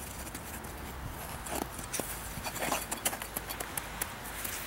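Figure skate blades scraping and crunching on snow-covered ice in short, irregular clicks and scrapes, busiest in the middle, over a low steady rumble.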